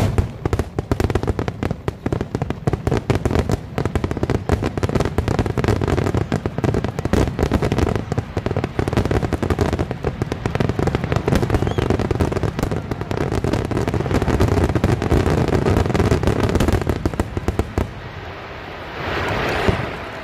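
Aerial fireworks going off in a dense, rapid barrage of overlapping bangs and crackles. The barrage stops about eighteen seconds in and is followed by a brief, quieter swell of noise.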